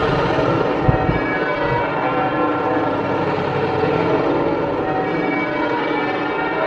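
Cathedral church bells ringing a continuous peal, many bell tones overlapping. A low rumble underlies the first second and a half, with a single knock about a second in.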